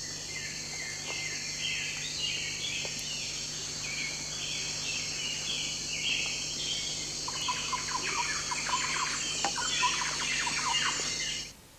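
Swamp ambience: insects chirring steadily, high-pitched, with birds calling in quick repeated chirps. Lower chirping joins about seven seconds in, and it all cuts off just before the end.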